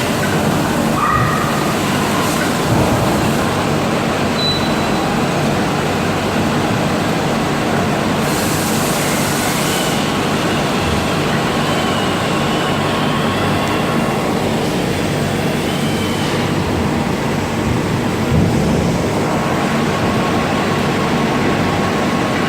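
Grinding machine running steadily: a loud, even mechanical noise with a low hum underneath.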